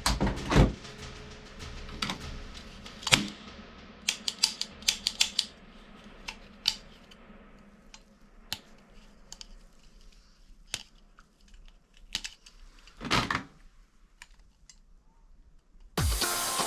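Irregular mechanical clicks and snaps from plastic toy guns being handled, cocked and fired, with a few louder snaps about half a second in, three seconds in and near thirteen seconds, and a quick run of clicks between four and seven seconds.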